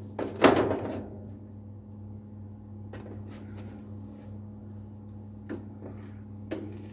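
Steady low hum of a biosafety cabinet's blower, with a loud knock about half a second in and a few faint clicks later as lab items are handled inside the cabinet.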